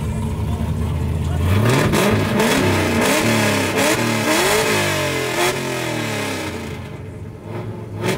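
Nissan 240SX (S14) drift car's engine idling, then revved hard over and over, the pitch shooting up and dropping back several times, before easing back down near the end.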